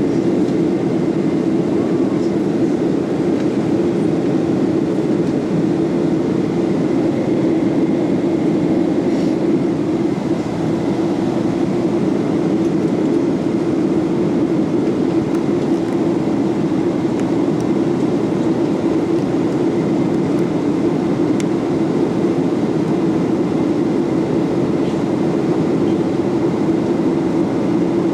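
Steady cabin noise inside a Boeing 737-800 airliner in flight: jet engines and rushing air as a dense, even low rumble.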